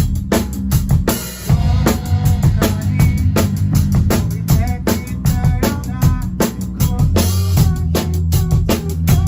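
Live rock band playing: a drum kit keeps a steady beat with kick and snare, under an electric bass line, with guitar and keyboard parts above.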